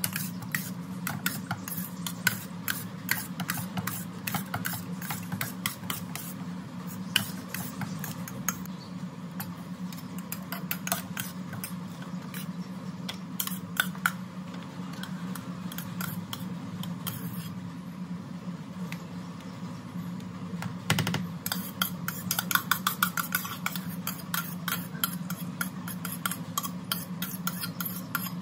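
Steel spoon scraping and clinking against a stainless steel bowl while stirring cooked rice and scooping it out, many quick irregular clicks and scrapes that grow busier and sharper near the end. A steady low hum runs underneath.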